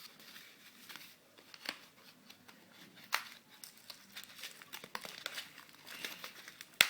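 Packaging crinkling and rustling as the parts of a water-purifier germkill kit are handled, with irregular sharp crackles and one loud click just before the end.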